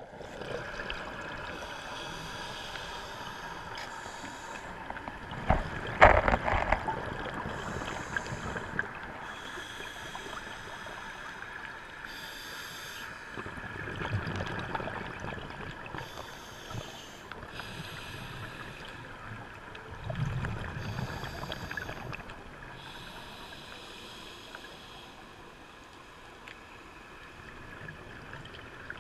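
Underwater ambience picked up by a submerged camera: a steady low hum with faint steady tones, and hissing rushes that come and go every couple of seconds. A few loud knocks come about six seconds in.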